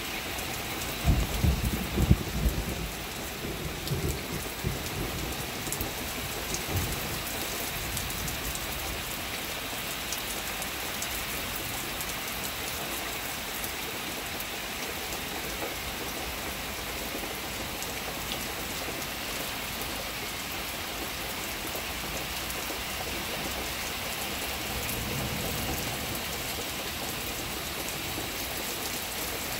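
Steady rain falling, with a low rumble of thunder about a second in that lasts a couple of seconds.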